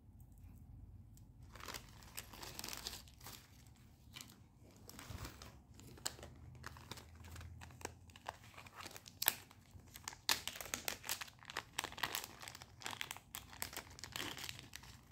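Packaging crinkling as it is handled and opened, in irregular crackles with many sharp ticks, starting about a second and a half in.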